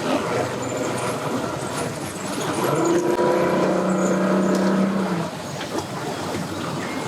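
Boat engines running at a busy ramp, with one steady horn blast lasting about two and a half seconds in the middle, which cuts off sharply.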